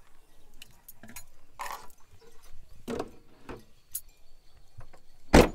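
Scattered light clicks and clinks of things being handled, with one louder knock near the end.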